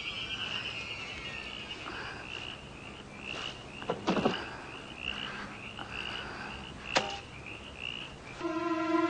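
Night chorus of frogs chirping in a steady, high, repeated pulse. It is broken by two sharp knocks about four seconds in and another knock near seven seconds. A loud, sustained low tone starts near the end.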